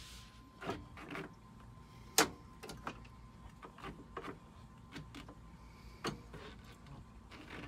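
Scattered light clicks and taps of metal fuel-line fittings and hand tools being handled, with one sharper knock about two seconds in.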